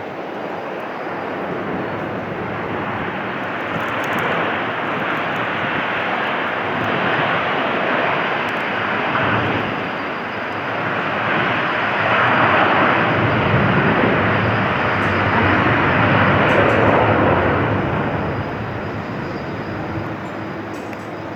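Airbus A350-900's Rolls-Royce Trent XWB turbofans as the airliner passes on landing. The jet noise builds, is loudest a little past the middle, then fades away.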